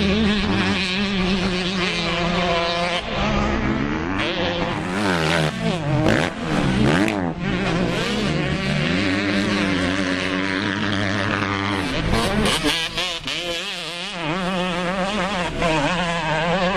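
Motocross dirt bike engines revving hard, their pitch climbing and dropping again and again as riders accelerate and shift through the gears, at times more than one bike at once.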